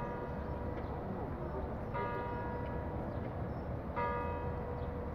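A tower bell striking slowly, three strokes about two seconds apart, each ringing on and fading, over a steady hum of city background noise.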